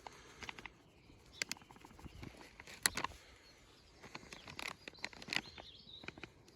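Light rustling and scattered small clicks and taps of loose compost and the carrot being handled by hand, with a sharper tick about three seconds in. A bird chirps faintly in the background around the middle.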